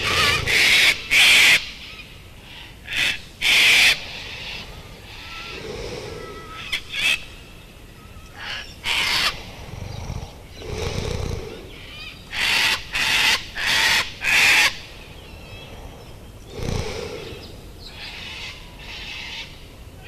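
Parrot squawking in short harsh bursts, in clusters of two to five at a time, with quieter low calls between the clusters.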